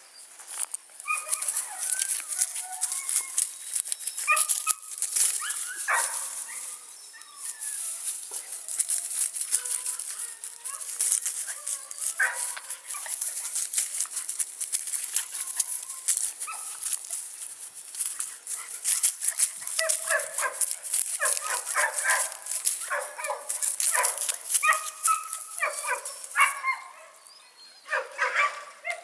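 Puppy whining and giving short yips, thickest in the second half, over a continual crackling rustle of dry leaves and grass.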